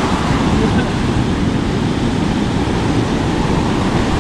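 Steady rush of surf breaking on a sandy beach, with wind buffeting the microphone.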